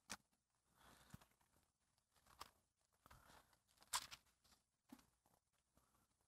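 Near silence broken by faint paper rustles and a few soft ticks, the loudest about four seconds in: Bible pages being turned.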